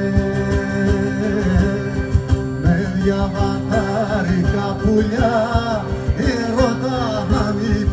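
Live Greek folk song on plucked strings, lutes and acoustic guitar, with a male voice singing; the voice comes in about three seconds in.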